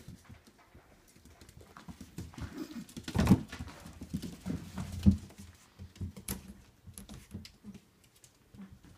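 Six-week-old puppies scampering and tussling on a hard floor: a scattered patter of small paws and claws, with two louder knocks about three and five seconds in.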